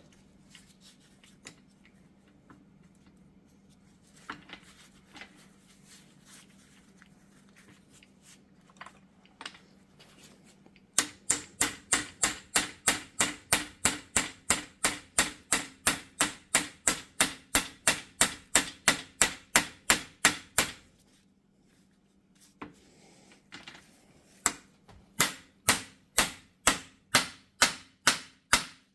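Hammer tapping a universal-joint bearing cap into an axle shaft yoke: a long run of rapid, even metal strikes, about three or four a second, then a pause and a second run near the end. A few faint clicks of handling come before.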